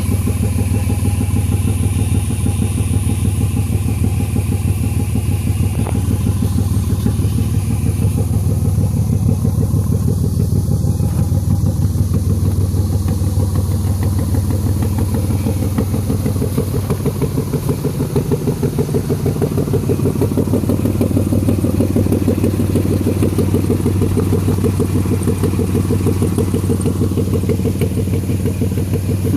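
Nissan D21 pickup truck's engine idling steadily.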